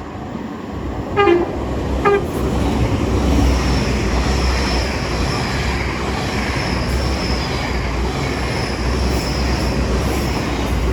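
Express passenger train pulling out of the station. The driver sounds two short horn toots, about one and two seconds in. Then the train's engines run with a steady low drone and a high whine as it moves off.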